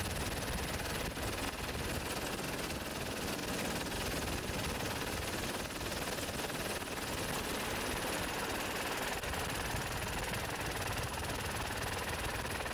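Helicopter running steadily: a rapid, even rotor chop over a low engine drone, with no break.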